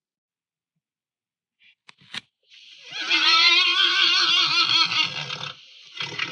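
A mythical-creature roar sound effect: a loud, wavering pitched call lasting about two and a half seconds over a steady high hiss. Two short clicks come before it, and a shorter burst follows near the end.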